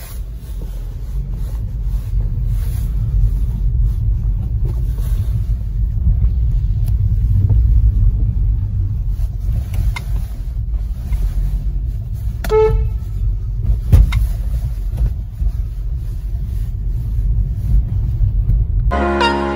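Car engine and road rumble heard from inside the cabin as the car moves off slowly, with a short horn toot about twelve seconds in and a sharp knock soon after. Music comes in just before the end.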